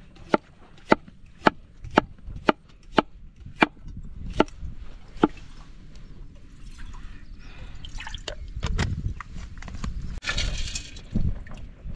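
A quick run of about nine sharp knocks, roughly two a second, that stops about five seconds in and gives way to a rustling, scraping noise, which grows louder near the end.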